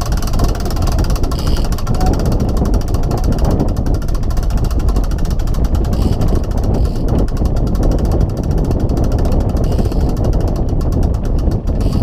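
Boat motor running steadily while the boat trolls, a loud continuous rumble.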